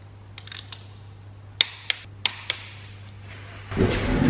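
Sharp metallic clicks of a torque wrench as bolts on a 2.5 TFSI five-cylinder engine are tightened to 45 Nm, four of them in about a second near the middle. Near the end a louder, continuous mechanical rasping starts.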